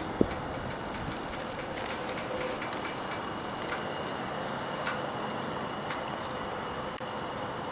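Steady outdoor ambience with a high, even insect chorus rising from the summer trees below, and one sharp click just after the start.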